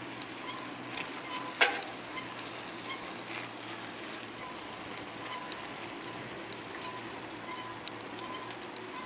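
Bicycle rolling along: steady tyre and wind noise with irregular clicks and rattles, and one sharp knock about a second and a half in.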